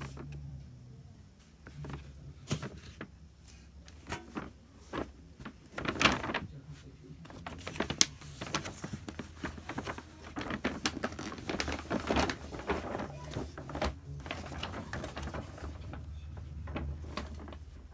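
Paper shopping bag rustling and crinkling in irregular bursts as folded clothes are pulled out of it and handled, over a low steady hum.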